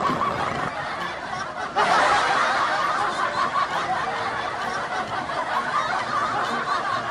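Group laughter, with a fresh burst starting sharply about two seconds in and slowly dying down.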